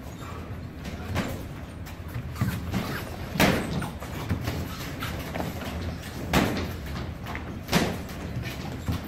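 Boxing gloves thudding on gloves, arms and padded headgear during sparring, with three heavier hits standing out among lighter ones.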